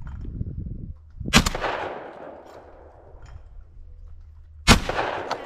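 Two shotgun shots about three and a half seconds apart, each a sharp loud report with a long echoing tail, heard very close from a camera mounted on the gun.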